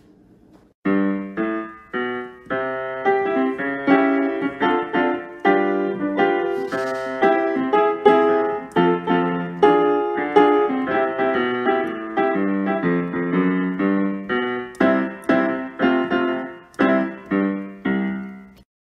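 Solo piano music, a run of notes struck one after another, starting about a second in and stopping abruptly just before the end.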